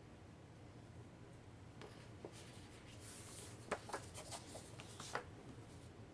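Faint rustling and a few soft taps of a heavy-paper fold-out map sheet being handled, starting about two seconds in.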